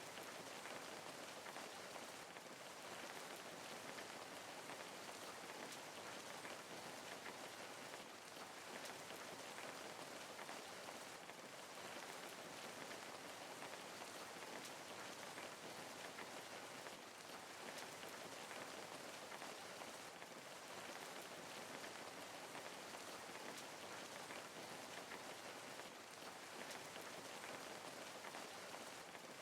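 Steady rain falling, with the fine patter of drops on a surface.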